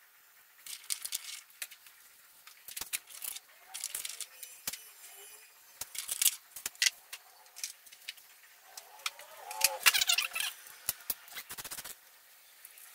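Irregular metallic clicks, clinks and scrapes of bolts being worked out of a BMW M44 engine's front timing cover and handled. A thicker cluster of clicks comes about two-thirds of the way through.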